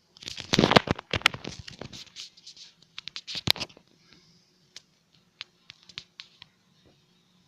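Scratching and rustling with sharp clicks, thickest and loudest in the first second, with another loud burst about three and a half seconds in, then only a few scattered clicks.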